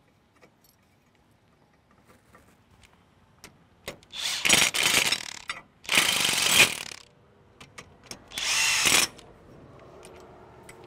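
Cordless impact driver with an Allen socket, running in the bolts that hold a chain roll plate to a corn head's stalk roll shaft, in three bursts of about a second each. Before them, for the first few seconds, there are only faint clicks as the bolts are started by hand.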